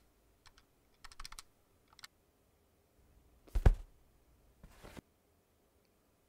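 A few scattered computer keyboard key clicks, then one louder, deeper thump about three and a half seconds in, and a short soft rustle about a second later.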